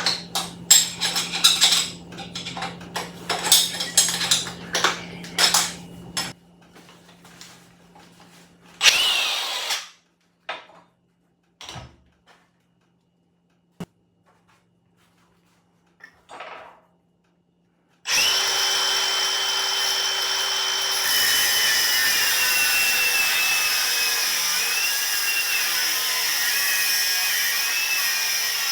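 Metal clinks and rattles as the angle grinder's wheel is swapped, a brief spin-up whine, then about two-thirds of the way in the angle grinder starts and runs steadily with a cutoff wheel on steel, its high whine wavering under load.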